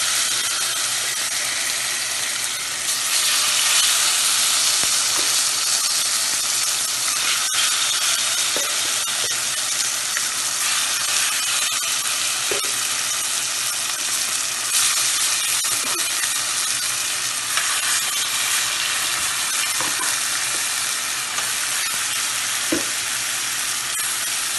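Marinated chicken pieces frying in smoking-hot vegetable oil in a metal pot: a dense, steady sizzle that grows louder about three seconds in, with a few light knocks of pieces and a spoon against the pot.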